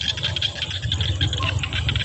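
Insects chirping in a fast, dense trill, with a low steady hum underneath.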